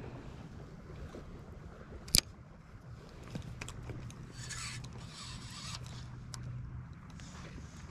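Spinning reel and rod being worked: a steady low whir of the reel, a sharp click about two seconds in, and a brief hiss a little past halfway.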